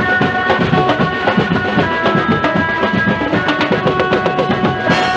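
Procession band drumming: fast, dense stick strokes on a set of snare and tom drums with cymbal crashes, played loud, with a steady held melody sounding over the beat.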